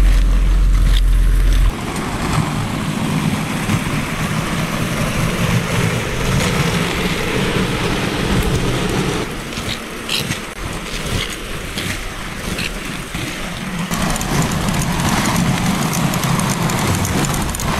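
Inline skate wheels and bicycle tyres rolling along asphalt, a steady rough rolling noise with a few light clicks near the middle. It opens with a loud low rumble lasting about two seconds.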